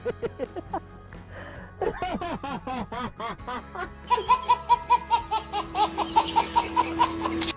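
A baby laughing hard in quick repeated bursts, with music underneath.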